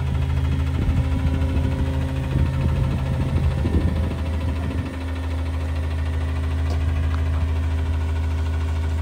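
Autocar front-loader garbage truck's diesel engine idling steadily. About four to five seconds in, its note changes and settles lower. There are a few light knocks in the first half.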